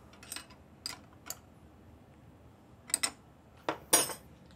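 A steel open-end wrench clinks against a clamp nut on a metal lathe as the nut is tightened. There are three light clinks in the first second and a half, then three sharper, louder metal clanks about three seconds in.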